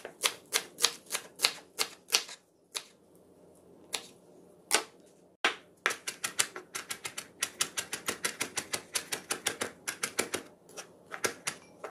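Knife chopping fresh cilantro and parsley on a wooden cutting board: quick runs of knife strikes, about four a second. The strikes thin out to a few single chops between about two and six seconds in, then pick up again.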